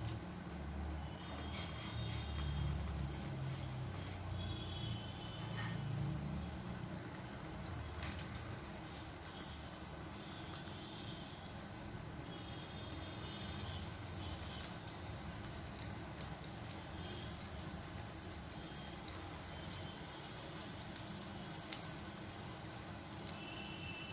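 Urad dal batter vadas frying in hot oil in a nonstick pan: a steady soft sizzle with scattered small crackles and pops. Some low bumps in the first few seconds as the batter is dropped in.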